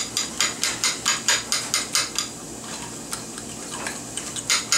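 Fork clicking against a bowl while mashing and mixing herb butter. There are quick, even strokes at about five a second, then they slow to a few scattered taps, with a louder pair near the end.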